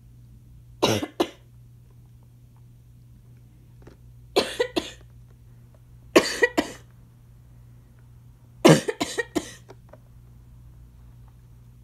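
Asthma cough: four short bouts of coughing a few seconds apart, each of two to four sharp coughs, the last bout the longest.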